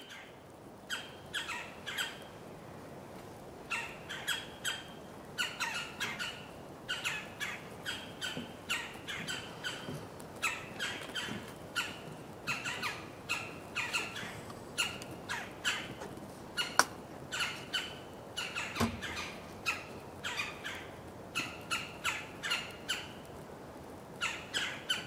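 Red-bellied woodpeckers calling: short, harsh churring calls in quick clusters of two to four, repeated about every second. A single sharp click stands out about two-thirds of the way through.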